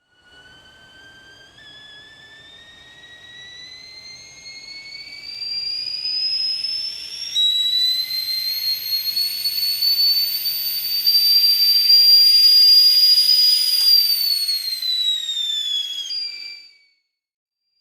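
Stovetop kettle whistling as the water comes to the boil: a single whistle that starts faint and rises steadily in pitch and loudness, holds steady, then drops in pitch and cuts off near the end.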